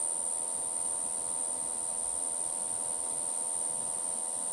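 Male Okanagana rimosa cicada singing its calling song, the song meant to draw females: one steady, unbroken high-pitched buzz.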